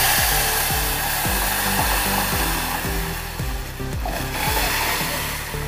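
Hot tempering oil with mustard seeds, dried red chillies and curry leaves sizzling loudly as coconut chutney is poured in. The hiss is strongest at the start and slowly eases.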